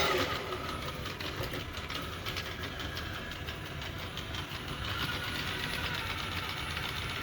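ILife V5s Pro robot vacuum-mop running in spot-cleaning mode, a steady motor hum with faint rapid clicking from its brushes.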